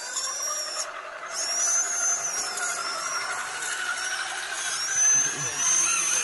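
Electric motor and geartrain of an RC 4WD scale crawler whining under load, the pitch rising and falling with the throttle as it climbs a muddy bank, with a short let-off about a second in.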